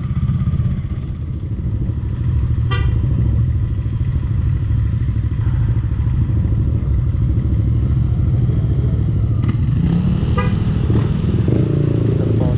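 Motorcycle engine running under way, a steady low drone that picks up revs after about ten seconds, with two brief chirps, one about three seconds in and one near the end.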